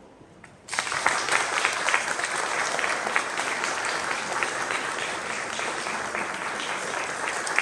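An audience starts clapping suddenly just under a second in, once the final chord of a grand piano duet has faded to a faint tail. The applause then continues at a steady level.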